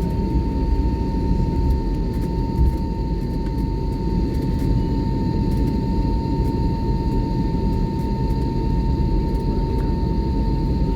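Airliner cabin noise after landing: a steady low rumble from the aircraft with a constant high whine over it, unchanging.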